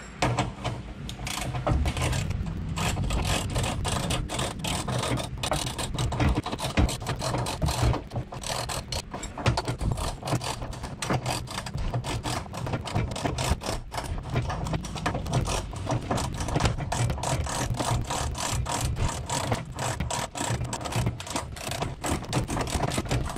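Ratchet wrench clicking rapidly and without a break while a subframe bolt is tightened to draw a new rubber subframe bushing up into the subframe.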